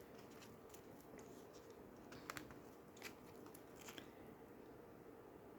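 Near silence with a few faint clicks and taps of oracle cards being handled, the clearest about two seconds in.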